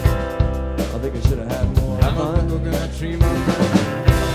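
Live band with saxophone, trombone and drums playing the closing bars of a song. Near the end, a loud hit leads into a held final chord.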